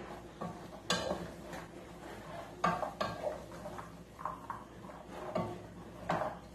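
Wooden spoon stirring flaked salt cod and vegetables in a stainless steel pot, scraping the bottom and knocking against the side of the pan several times at irregular intervals.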